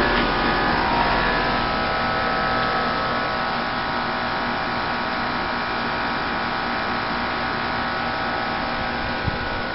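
Bryant Evolution 16 SEER heat pump outdoor unit running: the steady hum of its compressor and condenser fan, carrying several steady tones, with one light tap near the end.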